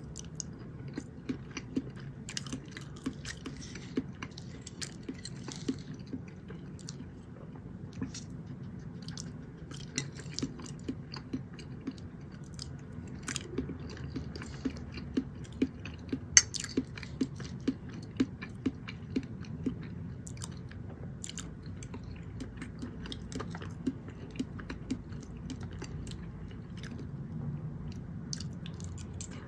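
Close-miked chewing of food, with a steady rhythm of short wet mouth clicks, about one to two a second; one click about 16 seconds in is much louder than the rest.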